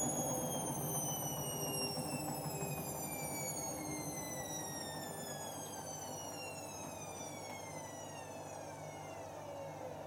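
Front-loading washer dryer's spin winding down: a high motor whine glides steadily downward in pitch as the drum slows, over a low rumble, growing gradually quieter.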